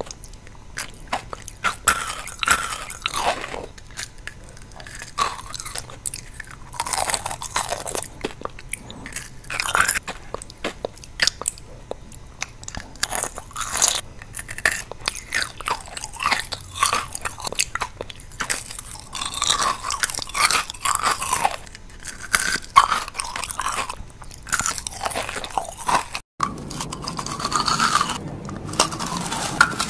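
Close-miked crunching and chewing of kohakutou jewel candy: the crisp sugar crust cracks in sharp, irregular bites, followed by softer chewing of the jelly inside. A brief dropout comes near the end, and the crunching then picks up again.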